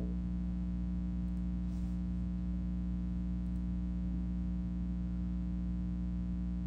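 Steady electrical mains hum at an even level, with nothing else heard.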